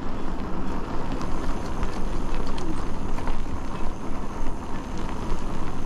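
Steady rush of an e-bike riding through the rain on a wet paved path: tyres on wet pavement and wind, with scattered faint ticks.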